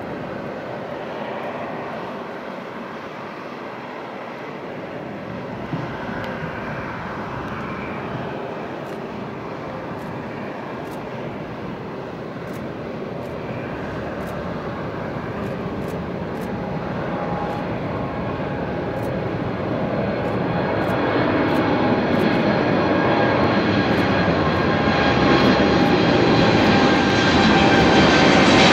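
Boeing 787-8 twin turbofan engines at takeoff thrust: a steady jet rumble through the takeoff roll and liftoff that grows much louder as the airliner climbs out toward overhead. A whine sets in partway through and slides slightly lower in pitch near the end.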